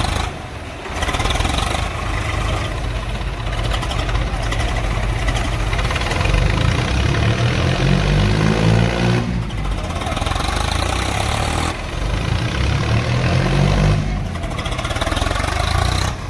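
Tractor diesel engines running hard, with the engine note rising as the revs climb about halfway through and again near the end; the sound drops out briefly a few times.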